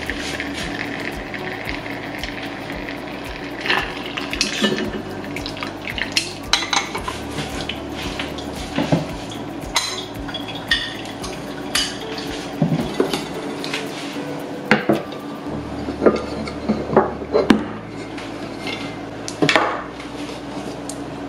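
Utensils and tableware clinking, with irregular light taps and clicks that grow busier toward the end.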